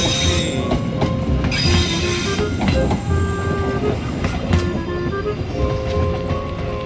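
Passenger train carriages rolling past on a curving track: a steady rumble of wheels on rails with two spells of high wheel squeal, the first right at the start and the second between about one and a half and two and a half seconds in, easing off slightly near the end as the tail car moves away. Background music plays over it.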